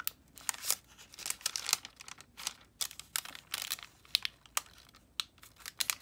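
Tracing paper crinkling in irregular crackles as hands press and shift it over a stone.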